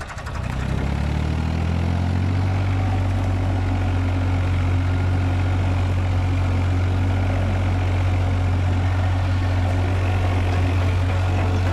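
IMT 533 tractor's three-cylinder diesel engine, heard from the driver's seat. It revs up over about the first two seconds and then runs at a steady speed as the tractor pulls a one-furrow plough through heavy soil.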